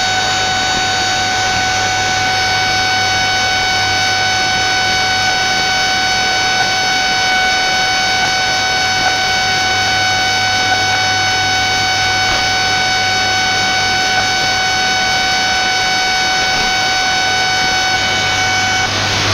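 Shortwave radio receiver's audio: steady static hiss overlaid by a constant whine of several evenly spaced tones, man-made interference (QRM) of the kind that spans roughly 15 to 21 MHz. The whine breaks off right at the end, leaving a brighter hiss.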